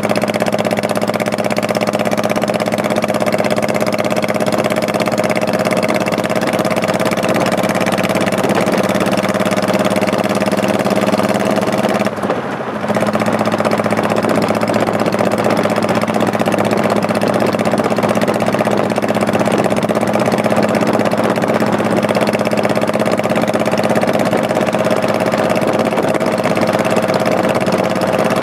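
Honda Shadow Spirit 1100's V-twin engine running at a steady, even pitch while riding. The sound dips briefly about twelve seconds in, then carries on at the same pitch.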